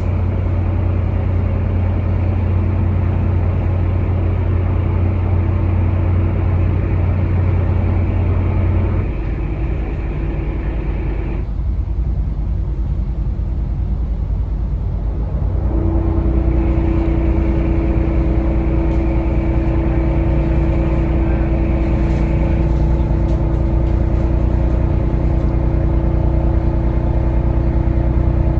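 Yacht engines running steadily in a deep, humming drone. The deepest hum drops away about a third of the way through, and a few seconds later a higher steady tone joins as the engine note changes.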